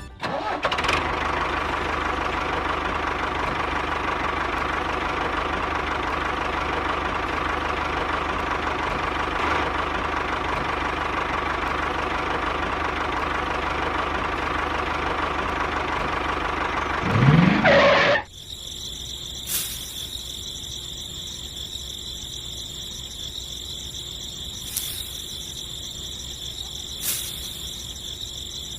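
A motor runs with a steady buzzing hum, rises in pitch about seventeen seconds in, and then stops abruptly. Afterwards only a faint, steady high whine remains, with a few light clicks.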